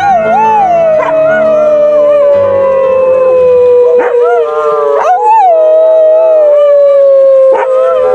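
A dog howling: two long howls, each opening with a waver and then sliding slowly down in pitch, the second starting about five seconds in, over background music.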